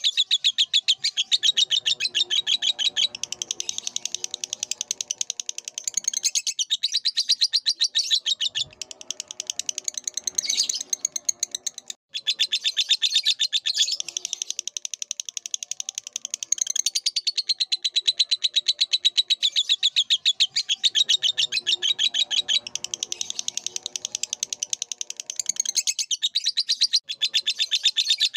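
Lovebird singing a long, fast, almost unbroken chatter of high chirps, with one very short pause about halfway through.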